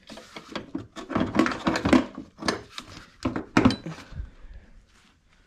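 Irregular knocks, clunks and scraping as a snowmobile drive shaft with its drivers is worked loose by hand inside the rubber track, thinning out near the end.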